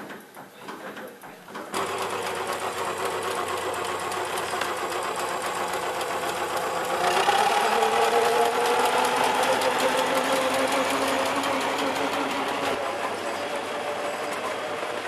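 Small steam engine of a miniature ride-on steam lorry running as it drives, a fast, even mechanical clatter. It starts suddenly about two seconds in, grows louder around the middle as the lorry passes, then eases off.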